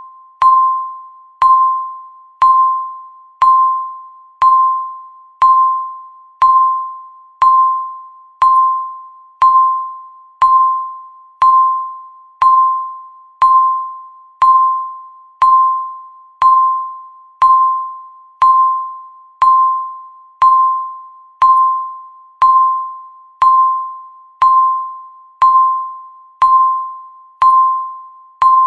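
Countdown timer tick: a bell-like ping that strikes sharply and fades away, once every second.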